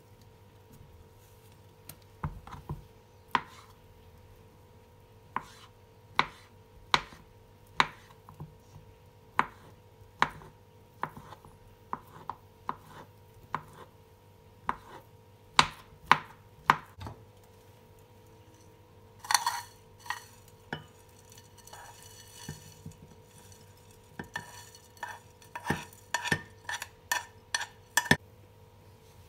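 Knife chopping on a cutting board, with single sharp chops every half second to a second. There is a short scraping sound about two-thirds of the way in, then a quicker run of chops near the end.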